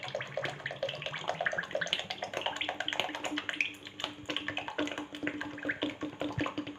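Cooking oil pouring from a plastic bottle into a wide iron kadai of boiling herbal paste: a steady splashing pour over the paste's dense popping and crackling as it boils.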